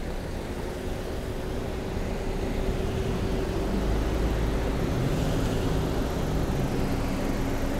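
Street traffic: cars passing at low speed, their engines and tyres giving a low rumble that grows over the first few seconds and is loudest around the middle, over a steady low engine hum.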